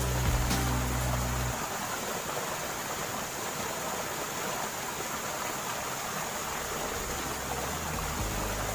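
Small stream cascading over rocks: a steady rushing of water. A low background music bed drops out about a second and a half in and returns near the end.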